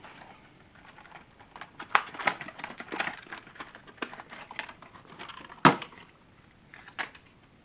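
Scattered clicks, taps and rustling of objects being handled, with one sharp knock about five and a half seconds in, the loudest.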